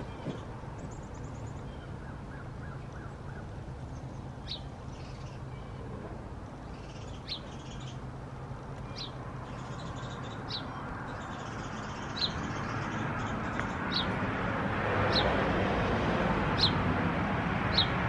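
A small bird repeating a short, high chirp, each a quick downward sweep, about every second and a half from a few seconds in. A steady background hiss grows louder near the end.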